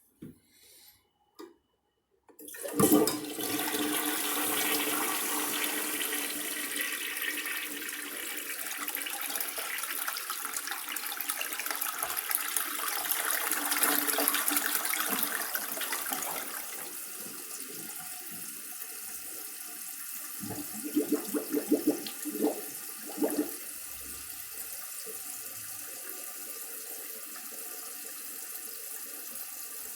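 Toilet being flushed: after a couple of quiet seconds a sudden loud rush of water that goes on for about fourteen seconds, then a quieter steady hiss of the tank and bowl refilling, with a few gurgles midway through the refill.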